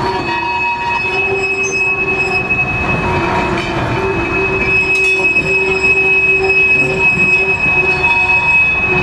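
Freight train of four-wheeled private-owner coal wagons and a brake van rolling slowly past, the wheels squealing on the rails with a steady high-pitched tone over a low rumble.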